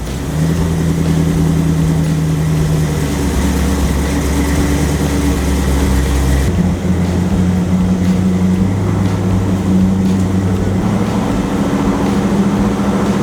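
Hot rod engine running steadily at idle, its speed stepping up and down a little; the sound changes abruptly about six and a half seconds in, as at a cut between two takes.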